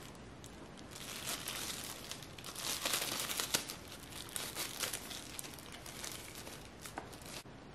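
Packaging crinkling and rustling as it is handled and unwrapped, busiest about three seconds in.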